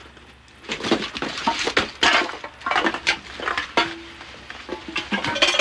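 Clattering and clinking of hard objects knocked together: a quick, irregular run of knocks and clinks starting about a second in.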